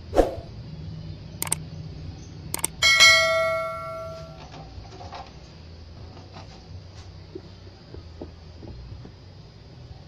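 A few light clicks, then a sharp metallic strike about three seconds in that rings with several bell-like tones and dies away over about a second and a half.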